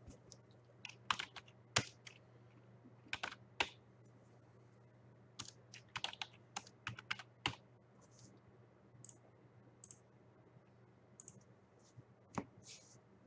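Typing on a computer keyboard: irregular keystroke clicks in short clusters with pauses between them, over a faint steady hum.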